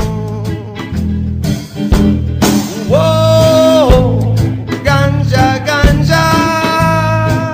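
Reggae music: a steady bass line and drum beat with guitar, and a held melody note that bends downward about three to four seconds in.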